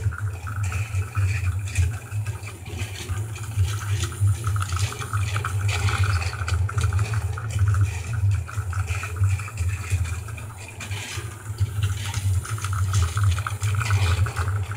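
Plarail battery-powered toy train running on its plastic track, its small motor whirring with a fine rattle of gears and wheels, loaded with a full Coca-Cola can. The sound wavers in loudness and drops briefly about ten seconds in.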